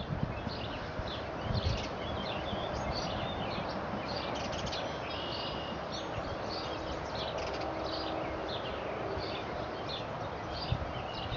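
Small birds chirping and singing, many short calls one after another, over a steady rushing background noise.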